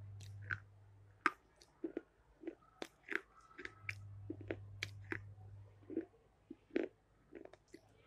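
Close-up wet mouth sounds: sharp tongue-and-lip clicks and pops, roughly two a second at irregular spacing, the "water drop" mouth sound. A low steady hum comes and goes beneath them.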